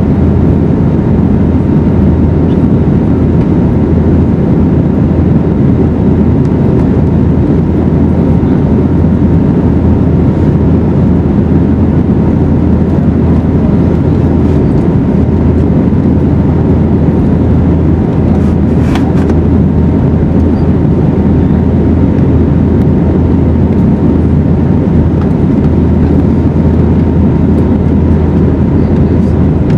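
Steady cabin noise of an Airbus A320neo in flight: a constant low rumble of engines and rushing air with a steady hum underneath. A single short click sounds about two-thirds of the way through.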